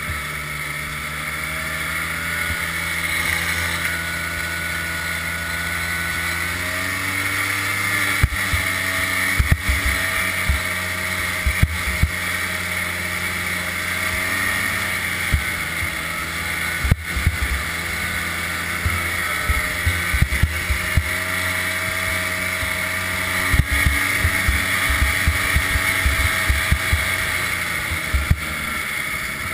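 1988 Ski-Doo Safari Citation 250 snowmobile's two-stroke engine running under way, its pitch rising about a quarter of the way in and again at the end. Frequent sharp knocks and thumps from about a quarter of the way in, as the sled jolts over the rough trail.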